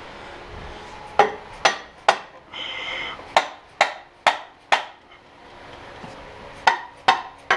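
Mallet blows on a metal part of a tractor engine: sharp knocks in three quick runs, three, then four, then three, about two a second. Between the first two runs there is a short ringing sound.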